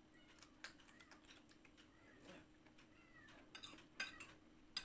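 Quiet eating sounds: a metal spoon clinking against ceramic bowls, with a few sharp clicks, the loudest about four seconds in and again near the end. Faint short high calls sound in the background.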